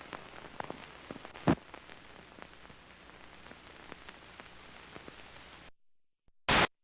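Hiss and crackle of an old film soundtrack running out on blank leader, with scattered clicks and one loud pop about a second and a half in. The sound cuts off near the end, and a brief loud burst of static follows.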